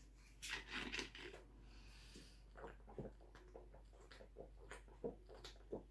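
Cap of a plastic soda bottle twisted open with a crackle and a short hiss of escaping gas, then a person drinking from the bottle with a series of soft gulps and swallows.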